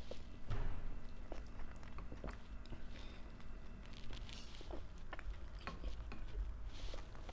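Close-up mouth sounds of someone chewing and biting a spoonful of pork Bicol Express and rice, with scattered small clicks and a metal spoon clinking against a glass bowl.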